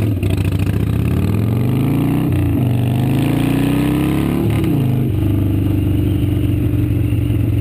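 Harley-Davidson V-twin motorcycle engine heard from the rider's seat, pulling up through the gears. The pitch rises, drops at a shift about two and a half seconds in, rises again and drops at a second shift about five seconds in, then settles to steady cruising.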